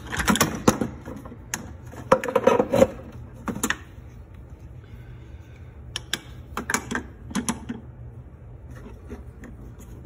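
Plastic wiring-harness connectors and wires clicking and rattling as they are pulled and worked apart by hand, in quick clusters of sharp clicks with pauses between, busiest in the first three seconds and again around the middle.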